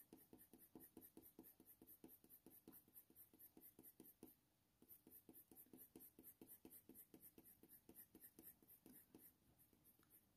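Faint, quick scratching of a Faber-Castell Polychromos colour pencil drawn in short, light-pressure strokes across hot-press watercolour paper, about five strokes a second, with a brief pause a little before the middle.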